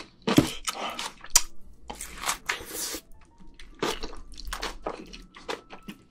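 Close-miked chewing: a quick, irregular run of wet smacks and clicks from a mouthful of food.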